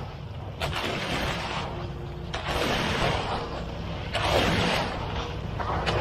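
Wet concrete being dragged and spread with a concrete rake, a rough swishing scrape several times, about a second each. Under it runs the steady low hum of a concrete mixer truck's engine.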